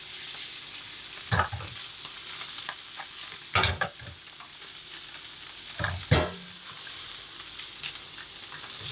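Black bream fillets frying skin side down in butter in a frying pan, a steady sizzle. A few short knocks from handling break in, the loudest about a third of the way through and again about two-thirds through.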